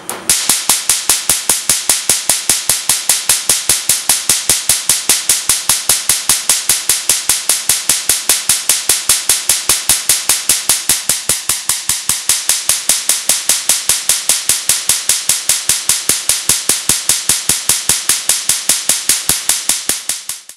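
Sharp, evenly spaced cracks, about five a second, from a Litron LPY10J pulsed Q-switched Nd:YAG laser firing its 5 Hz pulses onto a ceramic test piece. Each crack is the shock of one laser pulse striking the surface during laser shock peening.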